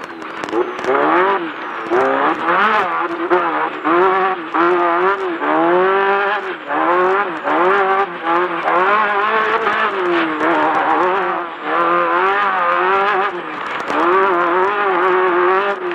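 Class 10 off-road race buggy's engine revving hard, its pitch rising and falling over and over as the throttle is worked.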